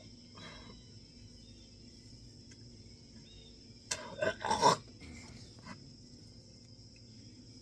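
A person makes a short, loud noise in the throat about four seconds in, a few quick pulses, the kind of sound that comes with nausea after drinking a bottle of Sprite on a stomach full of bananas. Under it is a faint, steady, high-pitched background hiss.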